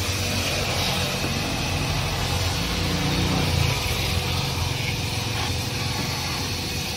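Hose-type car-wash vacuum cleaner running steadily while its nozzle is worked over a car's rear floor carpet, briefly louder about three seconds in.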